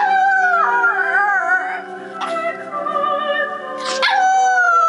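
Yorkshire terrier howling along to music: two long howls, each starting high and sliding down in pitch, the second beginning about four seconds in.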